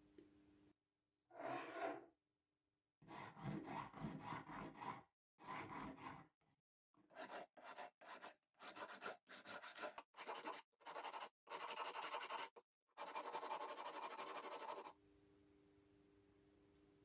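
Flat hand file scraping over braided copper wire, in separate strokes: a few longer passes, then quicker short strokes of about one or two a second, and a last steady run of filing. Filing the round strands gives them a slightly square shape.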